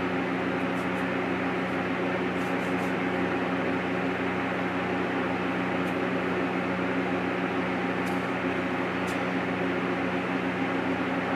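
Steady background hum and hiss, like a small motor or fan running, with a few faint ticks.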